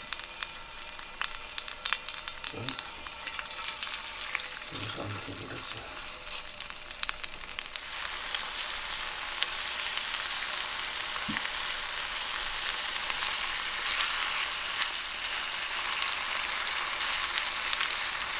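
Chicken thighs sizzling in hot oil in a cast-iron skillet as they are laid in piece by piece; the frying hiss grows louder about halfway through as the pan fills. Light clicks of metal tongs come through the sizzle.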